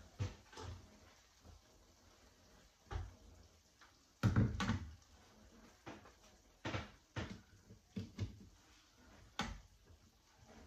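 Irregular knocks and clunks of a glass blender jar being handled, set down on its base and the counter and picked up again, the loudest pair about four seconds in.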